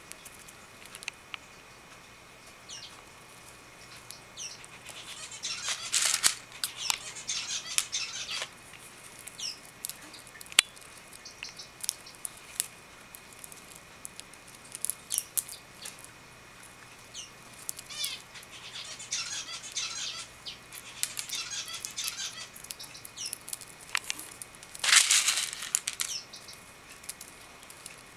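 A budgie cracking sunflower seed shells with its beak: scattered sharp clicks. Short bird chirps and a few louder bursts of rustling and flutter come between them.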